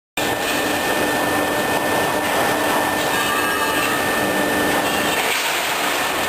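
Horizontal H-beam welding machine running with a steady mechanical noise and a thin, steady high whine. It cuts in abruptly just after the start.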